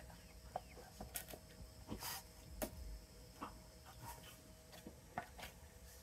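Faint, irregular wooden knocks, clicks and a brief scrape as a cedar floor board is pushed into the bottom of a small birdhouse, a tight fit.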